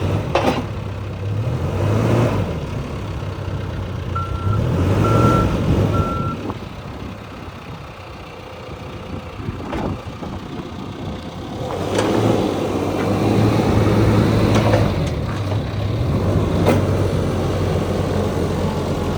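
John Deere 410K loader backhoe's diesel engine running, its loudness swelling and easing several times as the machine works. Its backup alarm beeps three times a few seconds in.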